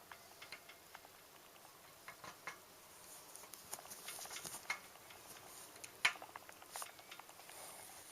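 Bicycle giving short, faint squeaks and ticks at irregular intervals while being pedalled. The owner suspects dry pedal spindles short of grease, since the squeak stayed after the bottom bracket was replaced.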